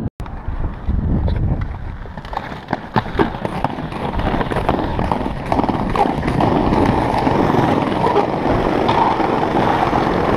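Inline skate wheels rolling over paving stones, clacking over the tile joints, with scattered sharp clicks and knocks. The sound cuts out for a moment right at the start.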